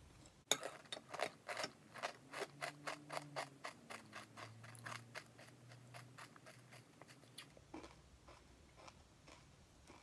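Cereal being chewed in the mouth: a run of crisp, even crunches about four a second that grows fainter and stops after about seven seconds.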